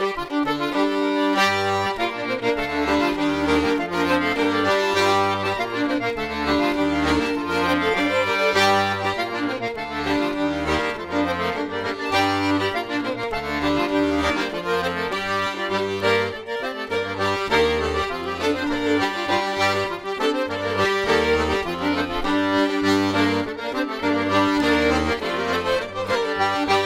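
Instrumental English folk tune led by accordion, with a rhythmic bass part coming in about a second and a half in.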